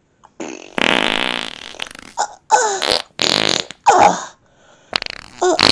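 A long, loud fart noise starting about a second in, then three shorter ones whose pitch rises and falls.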